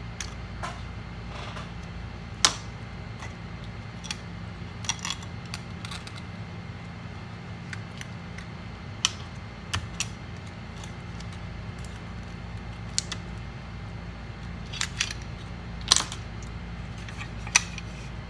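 Small, sharp metallic clicks and taps, about a dozen scattered at irregular intervals, of tiny screws, screwdrivers and parts being handled and set down during a MacBook Pro teardown. A steady low hum lies under them.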